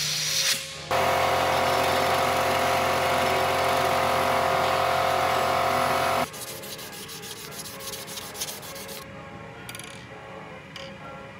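A short blast of compressed air, then a powered grinding wheel running steadily with a metal part held against it for about five seconds, cutting off suddenly. Quieter rapid clicking follows.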